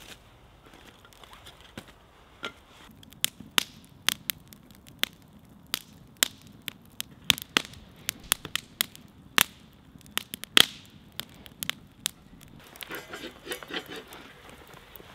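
Wood campfire crackling, with sharp irregular pops from the burning split logs, the loudest about ten seconds in. Near the end, a brief rattle of metal chain as the grill hanging over the fire is adjusted.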